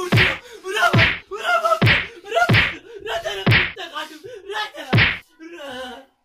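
A broom beating a person: a string of sharp smacks, roughly one a second, with voices yelling between them. It stops about five seconds in.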